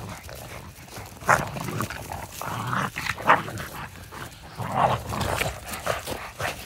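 Boston terriers wrestling in play, making short bursts of dog vocal noise about a second in, around three seconds in and near five seconds in.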